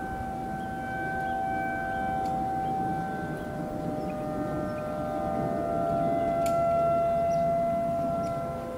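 ACA Hurricane outdoor warning siren sounding a steady, sustained tone during its monthly test. The note holds with a slight drop in pitch midway and swells louder about seven seconds in.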